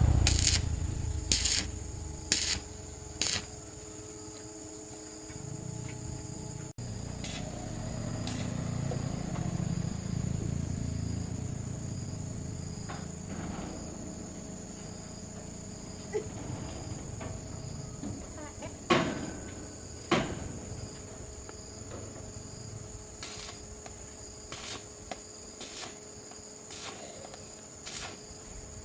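Insects trilling steadily in a high thin tone, with scattered sharp clicks and knocks. There is a cluster of clicks and knocks at the start and two louder knocks past the middle.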